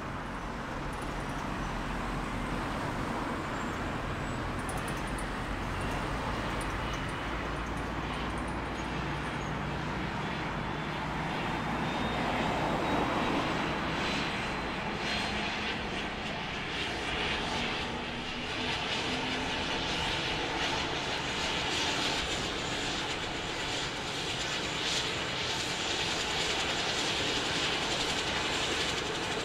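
Airbus H145 rescue helicopter's twin turbine engines and rotor running: a steady drone with a faint high whine.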